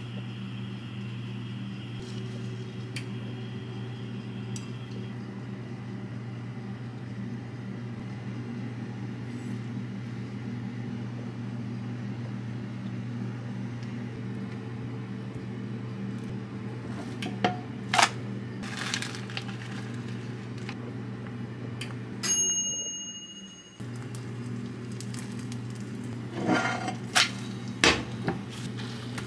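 Steady low electrical hum of a running kitchen appliance. It stops with a short high beep about three-quarters of the way through and starts again a second or so later. Dishes or glass clink a few times, once around the middle and in a cluster near the end.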